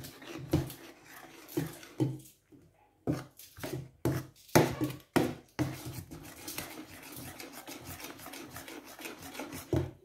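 A metal spoon stirring dry plantain flour into a thick blended plantain batter in a stainless steel pot, scraping against the pot. Irregular scraping strokes in the first half settle into a steadier rubbing stir in the second half.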